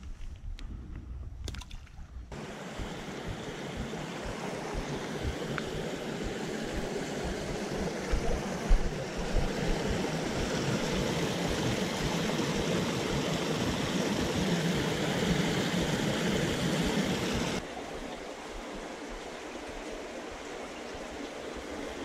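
Creek water rushing over rocks at a small cascade: a steady rush that starts about two seconds in, grows louder, and drops away suddenly about eighteen seconds in. A single low bump is heard about nine seconds in.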